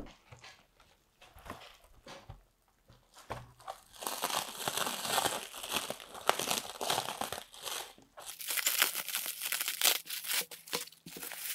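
Plastic stretch wrap crinkling and tearing as it is pulled off a laptop by hand. Only a few faint clicks at first, then the crackling starts about four seconds in and gets denser over the last few seconds.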